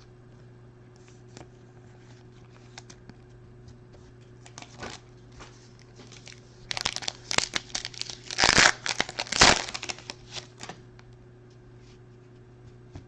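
A trading-card pack wrapper being torn open and crinkled by hand. A few faint handling clicks come first, then a burst of crinkling and tearing in the middle, loudest a little past halfway.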